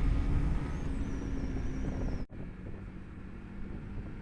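Motorcycle engine running at a steady cruise under road and wind rumble on the camera microphone. A little over two seconds in the sound cuts out for an instant and comes back quieter, with the engine note slightly lower.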